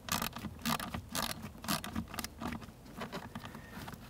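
Phillips screwdriver backing a screw out of a plastic HVAC blend door actuator: a run of light, irregular clicks and scrapes, a few each second.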